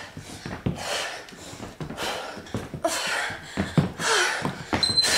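A woman breathing hard under exertion, with heavy exhales about once a second and dull thumps in between. A short high steady tone sounds near the end.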